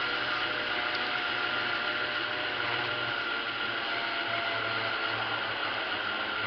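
G-scale SD45 model locomotive running along its track, heard from on top of the locomotive: a steady whirring hiss from its motor and gear drive, with a faint low hum underneath.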